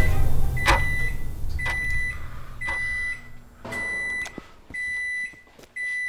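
Microwave oven's end-of-cycle alert: a high electronic beep about half a second long, repeated six times about once a second.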